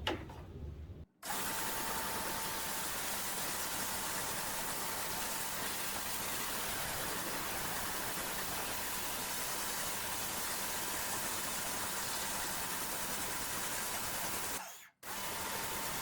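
Pressure washer spraying water onto brick paving to blast off moss and algae: a steady hiss of spray over the machine's even hum and a faint high whine. It is broken by two short silences, about a second in and near the end.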